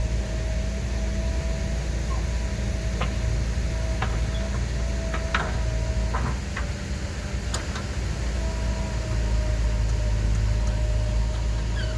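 Diesel engine of a JCB 3DX backhoe loader running steadily with a constant whine over its low rumble, and a few short knocks in the middle.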